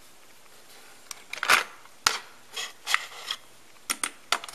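Cassette tapes and a clear plastic cassette case being handled: a series of sharp plastic clicks and short scrapes, starting about a second in.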